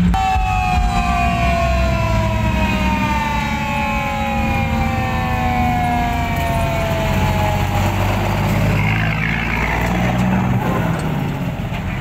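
Ten-wheel dump truck driving off with its diesel engine rumbling low. Over it a long horn tone starts at once and slides steadily down in pitch for about eight seconds before fading out.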